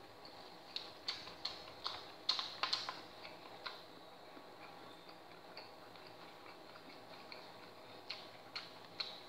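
Eating sounds: irregular light clicks and taps, a quick run of them in the first few seconds and a few more near the end, over a faint steady hum.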